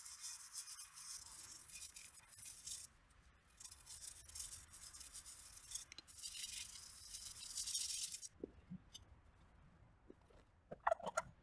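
Toothbrush bristles scrubbing a nickel-plated GPU water block cold plate with charcoal toothpaste: a back-and-forth scratchy hiss. It pauses briefly about three seconds in and stops about eight seconds in.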